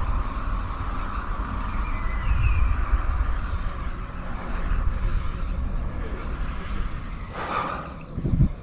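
Outdoor road noise: wind rumbling on the microphone over a steady traffic hum, with a brief louder hiss about three quarters of the way in.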